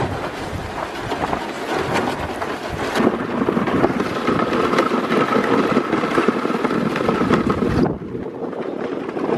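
A sled pulled by dogs slides fast over snow, making a continuous rough scraping hiss, with wind buffeting the microphone. A faint steady high tone runs through the middle, and the hiss thins abruptly near the end.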